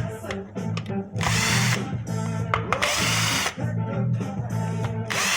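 A power drill whirring in short runs of about half a second, two times and then a third at the end, as it backs screws out of a sander's housing. Background music with a steady bass line plays underneath.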